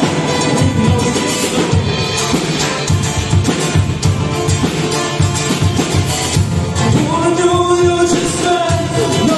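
Live acoustic rock duo playing: a man singing and strumming an acoustic guitar over a steady beat from a drum kit. The voice rises into long held notes near the end.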